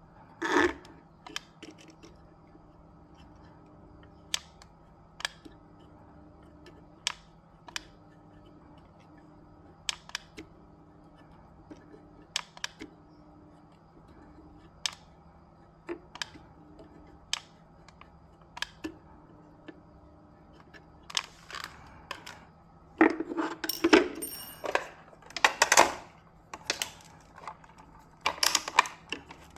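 Small tools and parts being handled on a workbench: scattered sharp clicks and taps every second or so, then a louder run of clattering and rustling near the end, over a faint steady hum.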